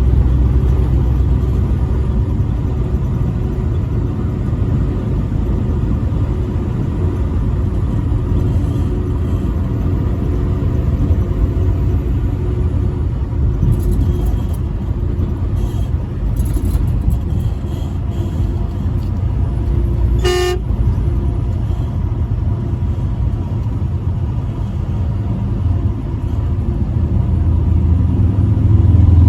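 Semi truck driving on the interstate, with a steady low engine and road rumble, and one short truck horn blast about twenty seconds in.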